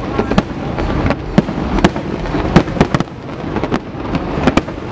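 Fireworks display: aerial shells bursting in an irregular run of sharp bangs, about two a second, over a continuous rumble.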